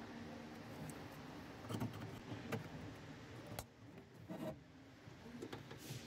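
A few separate clicks and knocks of plastic and metal parts being handled inside a car door at the lock actuator and latch, the sharpest about halfway through, over a low steady hum.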